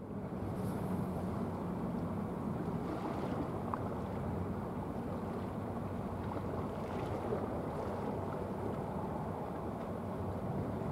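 Steady low drone of a small container ship's engine carried across open water, under an even rush of wind and water noise.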